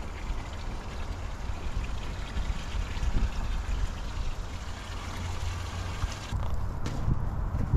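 Water pouring from a plastic watering can into a black plastic water tank being filled as a pond: a steady splashing trickle that breaks off about six seconds in.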